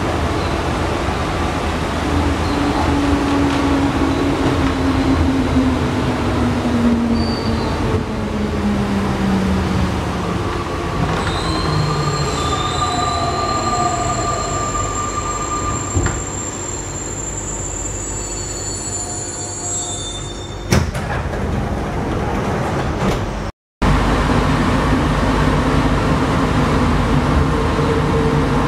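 Alstom NS-93 rubber-tyred metro train running, its traction drive whine falling steadily in pitch as it slows into a station. It then stands with thin high steady tones and a sharp thump about 21 seconds in. After a brief gap it is running again.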